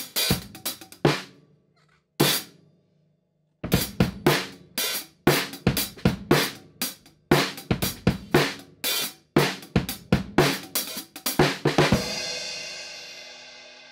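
Acoustic drum kit played with sticks: a quick groove of snare and cymbal hits that stops about a second in, leaves a single hit about two seconds in, resumes after about three and a half seconds, and ends near the end on a cymbal crash that rings out and fades.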